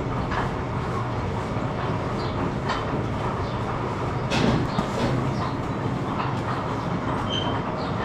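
Barn cleaner gutter chain with its paddles running steadily along the manure gutter, a continuous mechanical rattle with scattered clicks and a louder knock about four and a half seconds in.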